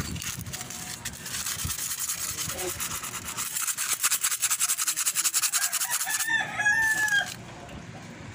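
Sandpaper rubbed by hand in quick back-and-forth strokes over a rusty metal lampshade, scouring off the rust. Just after the sanding stops, a rooster crows once in the background.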